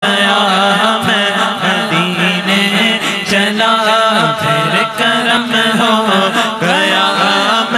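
Urdu naat sung by a man into a microphone, his melismatic melody gliding and ornamented, with a second male voice holding a steady low hum beneath it and no instruments.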